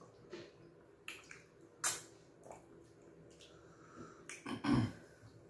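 Eating sounds: wet mouth smacks and chewing as fufu and light soup are eaten by hand, with scattered sharp smacks, the loudest about two seconds in and a quick cluster near the end.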